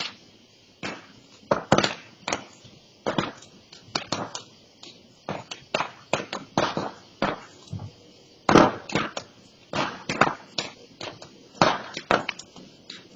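Burning brush pile crackling and popping: sharp, irregular pops about two a second, one of the loudest about two-thirds of the way through.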